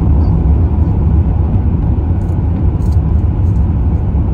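Car driving, with a steady low rumble of road and engine noise.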